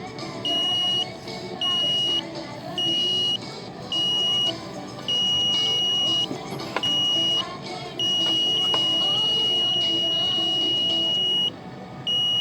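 Microwave oven's electronic beeper sounding a high, shrill beep over and over at irregular spacing, most beeps about half a second long, with one held for about three and a half seconds past the middle.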